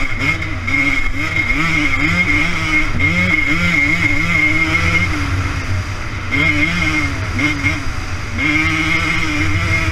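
Dirt bike engine racing across desert sand, its revs surging up and down in quick pulls as the throttle is worked, then holding steadier near the end.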